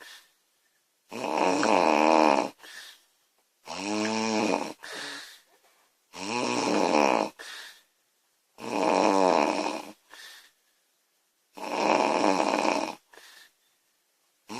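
Woman snoring loudly in a steady rhythm: five long snores about two and a half seconds apart, each followed by a short, softer breath sound.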